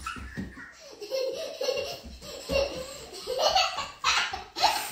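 A young child laughing and giggling in several short bursts, loudest near the end.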